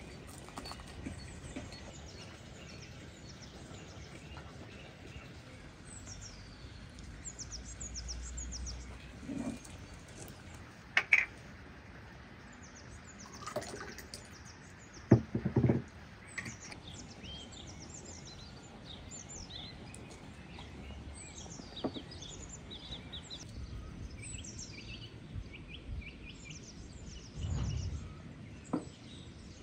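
Small birds chirping and twittering on and off throughout, with a few sharp knocks partway through.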